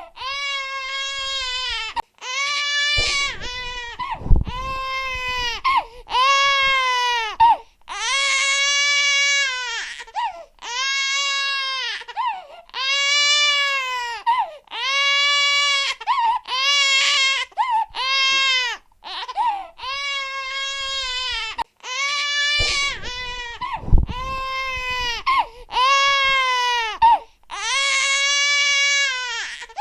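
Infant crying loudly in a run of high-pitched wails about a second long, each rising and then falling in pitch, with brief gaps between them. Two low thumps come through under the crying, one about four seconds in and another about 24 seconds in.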